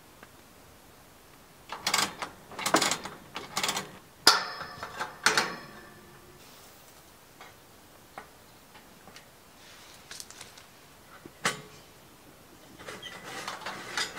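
Metal clicks and clattering as a round kerosene heater's small hinged hatch and fittings are handled, one knock leaving a brief metallic ring. A single sharp click follows later, then some rustling near the end.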